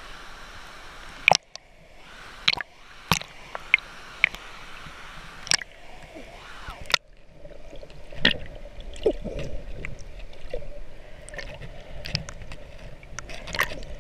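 Waterproof action camera at the river surface, with water lapping and splashing against its housing and sharp drop clicks. About halfway through it goes under, and the sound turns to a muffled underwater rumble with bubble gurgles and clicks.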